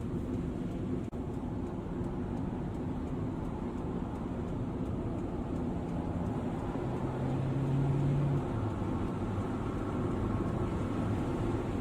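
Car driving at about 80–90 km/h, a steady mix of engine and road noise, with an engine tone rising in level for a moment about seven seconds in.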